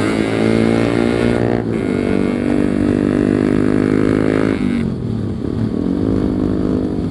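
Yamaha RX-King 135cc two-stroke single-cylinder motorcycle engine pulling through the gears. Its pitch climbs, breaks at a gear change about one and a half seconds in, and climbs again. The throttle closes about four and a half seconds in and the revs fall, then pick up again near the end.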